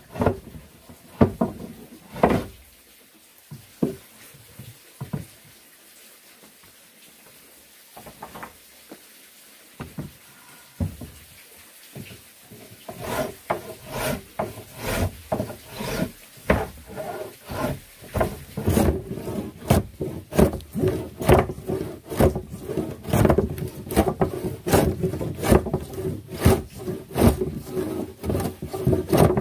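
Wood being sawn by hand. A few scattered knocks come first, then after a quiet stretch come back-and-forth saw strokes, starting about halfway through and settling into an even rhythm of about two strokes a second.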